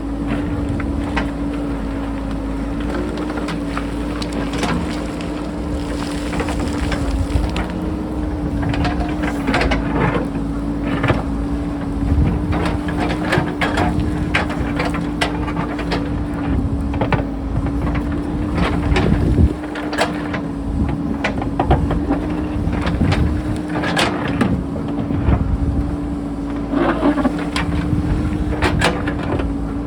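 JCB backhoe loader's diesel engine running steadily under load, with frequent short knocks and clatters of rock as it digs into the mountainside.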